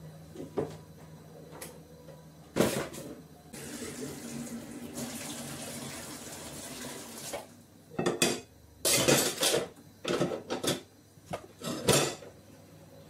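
Kitchen mixer tap running into a sink for about four seconds while hands are washed under it, followed by a run of clattering dishes and pots in the sink. A single knock comes a little before the water starts.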